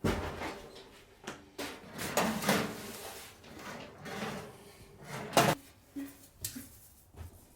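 A run of knocks and clatters from kitchen items being handled, opened and set down, about eight separate sounds with the loudest about five and a half seconds in.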